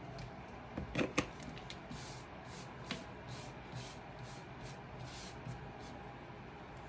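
Hands handling a cardstock craft piece with a plastic dome glued on. A few light taps come about a second in, followed by brief, soft rustles while it is held under light pressure.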